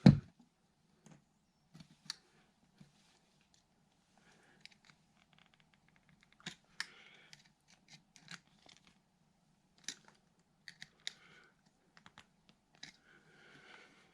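A single knock, then needle-nose pliers clicking and scraping on electrical wire ends in scattered small bits, bending the ends into hooks for an outlet's terminal screws.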